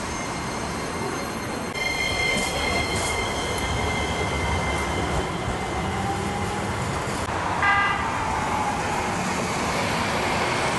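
Hiroden low-floor articulated streetcar pulling away from the stop, its electric traction motors setting up a steady high whine from about two seconds in that fades over the next few seconds, over wheel and street noise. A short pitched warning toot sounds near the end.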